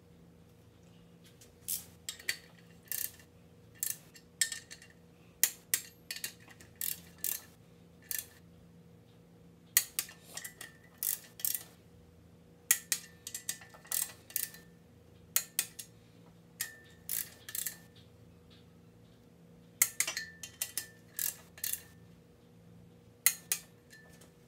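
Ratcheting torque wrench clicking in short runs of sharp, metallic clicks as the main bearing cap bolts are drawn down.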